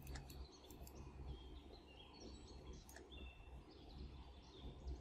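Near silence: faint room tone with a low hum, scattered faint high chirps and a few faint clicks.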